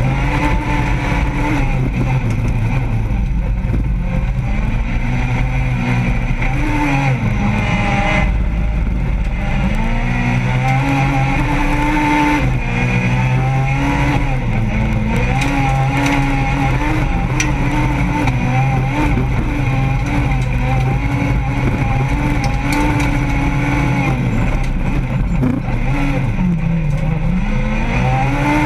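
Renault Clio 2 Super1600 rallycross car's 1.6-litre four-cylinder engine at race pace, heard from inside the cabin, revs climbing and dropping repeatedly through gear changes and corners.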